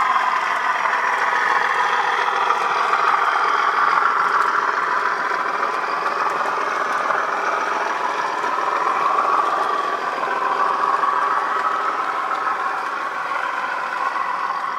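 Model train running along the track past the scene, a steady mechanical running noise from the locomotive and rolling wagons.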